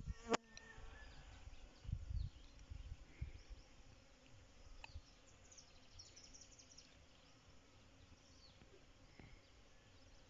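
Faint buzzing of a bee working avocado flowers, with a few short high bird chirps and low wind or handling rumble. A sharp click comes right at the start.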